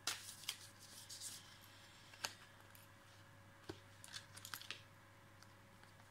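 Tarot cards being handled and shuffled: a sliding, papery rustle in the first second, then a few light sharp clicks and snaps of card on card, with a quick cluster of them near the end.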